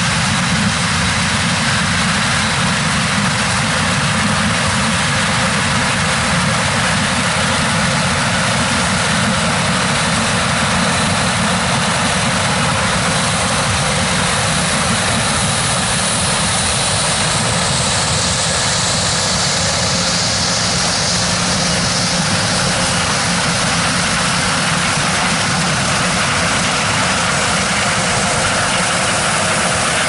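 John Deere S660 combine harvesting corn alongside a John Deere 9410R tractor pulling a grain cart: steady, loud running of engines and harvesting machinery, with a brighter hiss swelling midway as the machines pass close.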